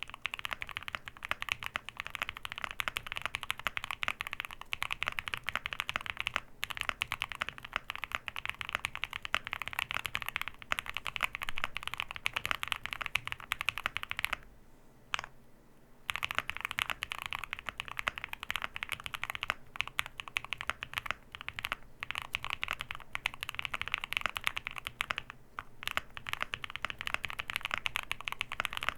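Typing on a QK65 mechanical keyboard with lubed-and-filmed Epsilon switches, an aluminium plate and a PE foam mod: a dense, steady run of key clacks. It stops for about a second and a half around halfway, then resumes.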